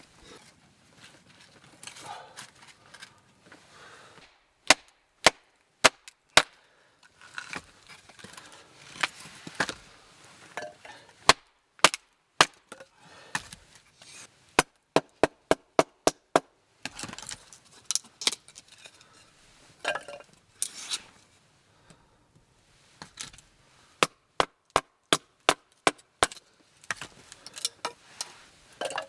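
Wood being chopped: sharp knocks, often in quick runs of about four a second, with pauses and fainter rustling between the runs.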